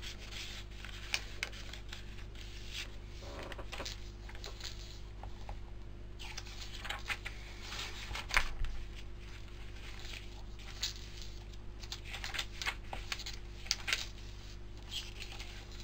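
Paper pages of a handmade journal being turned and handled: soft rustles and scattered page flicks and taps, with one sharper snap about eight seconds in, over a steady low hum.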